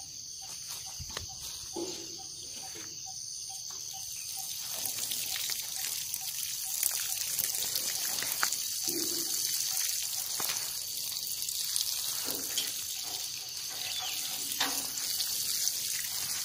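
Galvanized metal watering can sprinkling water through its rose onto bare soil, a steady spray that starts a few seconds in and keeps going.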